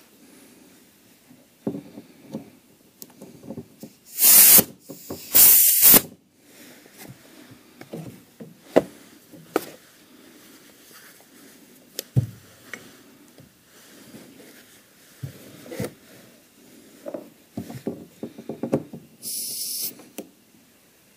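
Two loud blasts of hissing compressed air about four seconds in and a shorter hiss near the end, with scattered clanks and knocks of tools and metal parts in between.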